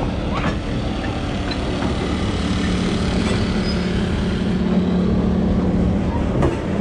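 A diesel-electric switcher locomotive passing close by at low speed, its diesel engine drone growing louder as the engine comes alongside, over the rumble of wheels on the rails. A single sharp clank near the end.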